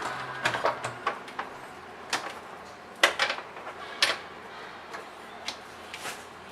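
Irregular clicks and knocks of metal and plastic lock parts being handled and fitted as the back panel of an electronic hotel door lock goes onto the door, the sharpest knocks about three and four seconds in.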